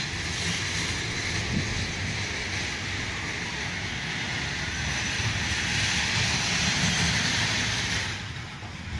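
Round Up amusement ride machinery running: a steady hiss over a low rumble that swells slightly and then cuts off abruptly about eight seconds in.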